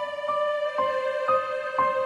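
Slow, gentle background music: a soft keyboard melody stepping to a new note about twice a second over a held chord.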